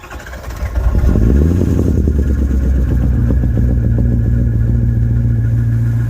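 Ford 6.0 Powerstroke V8 turbo-diesel cold-starting in a blizzard: a short crank, catching about a second in, a brief rise in revs, then settling into a steady idle through a 10-inch exhaust stack.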